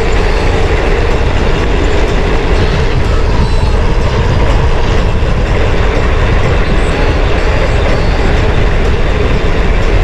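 Wind rushing over the camera microphone and a mountain bike rattling over a rough dirt trail on a fast downhill, a loud, steady, unbroken din.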